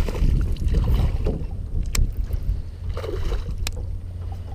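Wind buffeting the microphone, a steady low rumble, with three sharp clicks spread through it.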